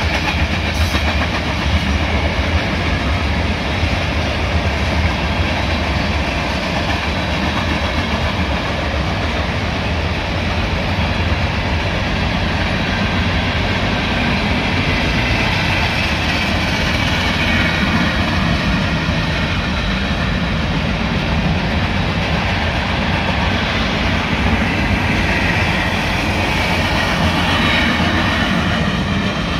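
Union Pacific mixed freight train's railcars, tank cars and covered hoppers, rolling past at close range: the steady noise of steel wheels running on the rails, with no locomotive in the sound.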